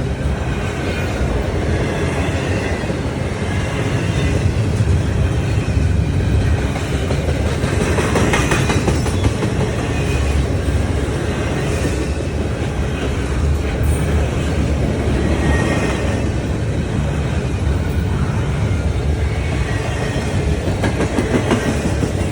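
A train rolling past: a steady, heavy rumble of railcars with occasional clicks from the wheels, rising a little in loudness over the first few seconds.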